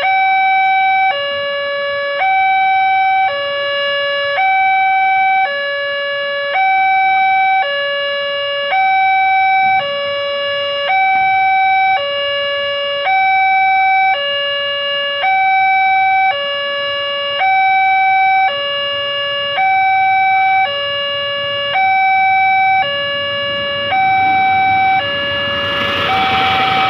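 Railway level-crossing warning alarm from the signal post's loudspeaker, alternating a high and a low electronic tone about once a second, sounding because a train is approaching. Near the end the rumble of a passenger train passing over the crossing rises under it.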